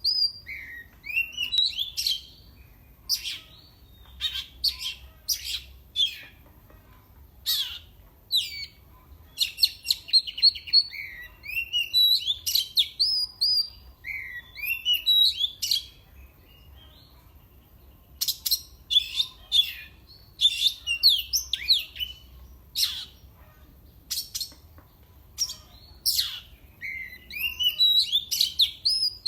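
Oriental magpie-robin (kacer) singing: a varied run of loud whistles, rapid chirps and sharp notes in bursts, with short pauses between phrases.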